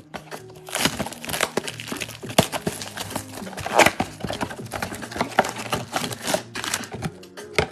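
Cardboard trading-card box being handled and opened, then its stack of wrapped card packs pulled out: irregular crinkling, rustling and cardboard clicks, with faint background music underneath.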